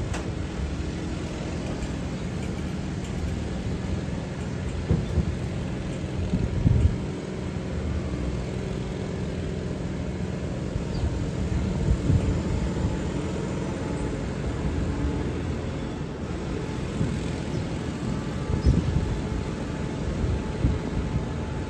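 Steady hum of a subway train standing at a platform with its doors closed, with irregular low rumbles rising and falling over it.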